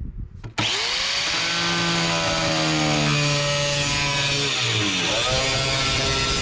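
A power cutting tool spins up about half a second in and cuts into the rusted sheet-metal floor of a Jeep Wrangler, a loud steady cutting sound over a motor whine. The whine dips in pitch for a moment around five seconds in as the tool is loaded, then recovers.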